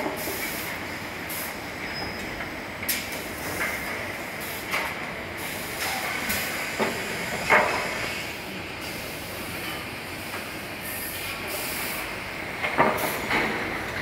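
Raimann multi-rip saw line and its chain infeed conveyor running with a steady mechanical noise and a faint whine. Boards clank several times as they are moved onto the chains, loudest about halfway through and again near the end, with short hisses of compressed air in between.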